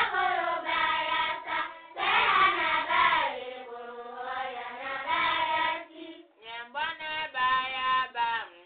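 Voices singing a chant in phrases, with short breaks between them, about two seconds and six seconds in.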